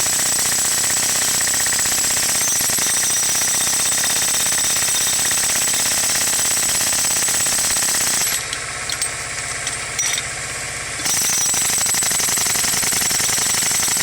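Jackhammer hammering steadily and rapidly, stopping for about three seconds after eight seconds in, with a couple of knocks in the pause, then starting up again.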